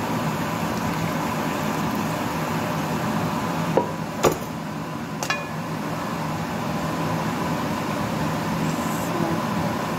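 Steady hum of a kitchen fan or air conditioner. Between about four and five and a half seconds in come three sharp knocks as a granite-coated pot is handled over a mesh strainer.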